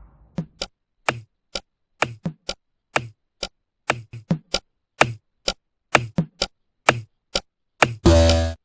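Knocking: a run of sharp, dry knocks in an uneven rhythm, about three a second, with a brief loud buzz near the end.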